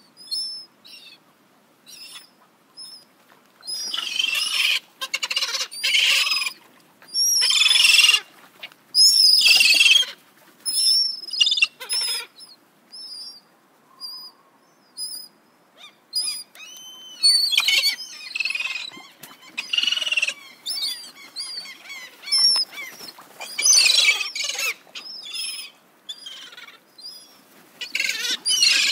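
Gulls calling: short high calls repeated every second or so, broken several times by loud bursts of many overlapping cries.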